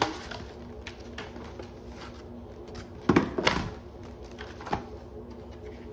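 Clear plastic packaging tray from a Pokémon card box being handled: scattered plastic clicks and rustles, with a louder cluster of clicks about three seconds in and another near the end.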